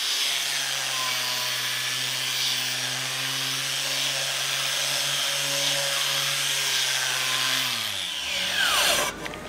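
Angle grinder running with a cup brush pressed against the cooking surface of a seasoned carbon steel skillet: a steady motor whine under a harsh scrubbing hiss, taking the top edge off the seasoning to smooth it. Near the end the motor is let go and spins down with a falling whine.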